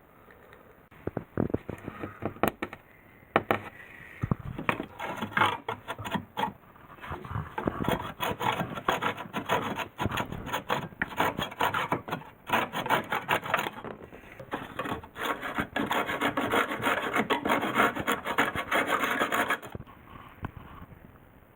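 Wood being worked by hand with rapid back-and-forth rasping strokes, in several long runs that stop abruptly near the end.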